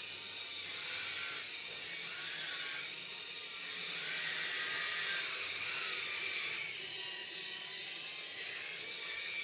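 Small electric drive motors and tracks of a tracked robot whirring as it drives across carpet, the whine wavering up and down in pitch and swelling gently in loudness as it moves and turns.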